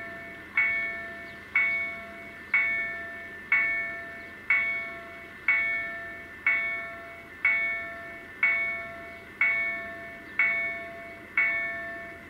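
Level crossing warning bell ringing about once a second, each stroke a bright ring that dies away before the next, sounding while the barriers are down for an approaching train.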